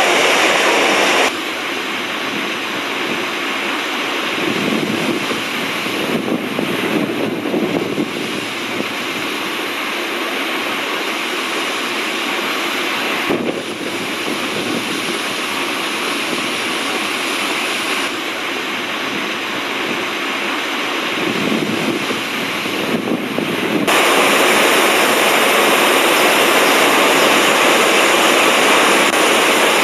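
Iguazu Falls' massive waterfall: a loud, steady rush of falling water, shifting abruptly in loudness and tone several times as the shots change, duller through the middle and brighter again near the end.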